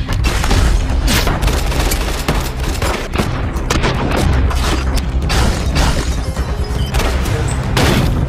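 Rapid handgun fire, many shots in quick succession, with debris flying and a loud action-film music score underneath.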